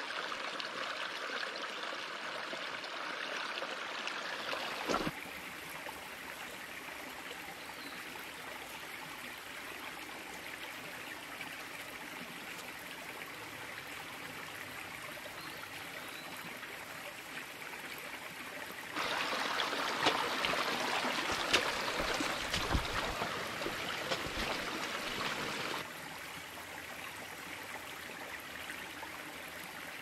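A small rocky stream trickling and burbling over stones, steady throughout. For several seconds past the middle the water is louder, with a few sharp knocks or splashes.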